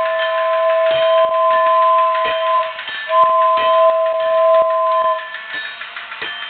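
Toy steam locomotive's two-note whistle sounding two long blasts, the first ending about three seconds in and the second cutting off about five seconds in, over irregular clicking from the running toy train.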